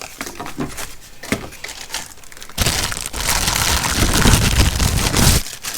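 Packaging being handled: light rustles and clicks, then about two and a half seconds in, loud crinkling of paper or plastic packing material for about three seconds.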